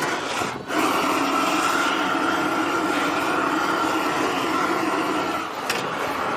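Steady hiss of a handheld gas torch flame heating the inside of a copper cauldron for tinning, with a cloth wad rubbing over the tinned metal.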